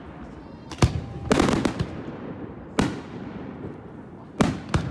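Aerial fireworks shells bursting: a sharp bang about a second in, then a quick cluster of crackling reports, another bang near three seconds and two more close together near the end.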